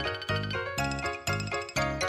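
Background music: a bright, tinkling bell-like melody over bass notes, with a steady beat of about two notes a second.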